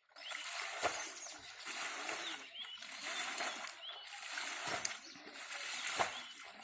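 Water splashing and sloshing, with a few sharper splashes, as people search by hand for fish in a shallow pond.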